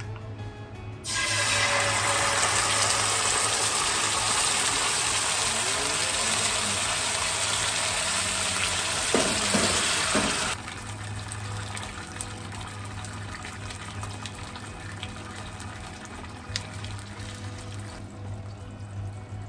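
Kitchen tap running hard for about nine seconds, then turned off abruptly.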